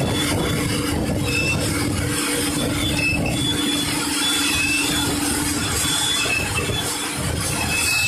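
Self-loading concrete mixer truck discharging gravel from its tipped drum down the chute: a steady rushing pour of stones over the running engine's hum, with brief high-pitched squeaks recurring throughout.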